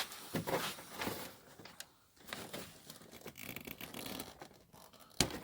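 Light handling noises as a scooter's rubber fuel hose is worked off and moved aside: rustling, scraping and small clicks, with one sharp click near the end.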